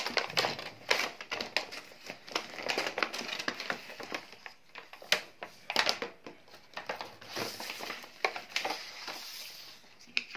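Stiff plastic blister packaging crinkling and crackling as it is pulled open and a plastic crawling Captain America toy is taken out of it, with irregular clicks and knocks of the plastic parts.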